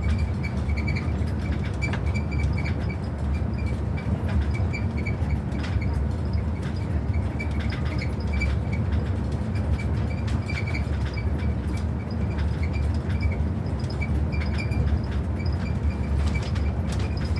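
A train running along the track: a steady low rumble with scattered clicks and a faint, flickering high tone above it.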